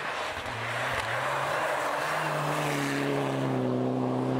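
Rally car engine at high revs. Its pitch steps down briefly near the start, as at a gear change, then it holds a steady, loud note, with road noise beneath.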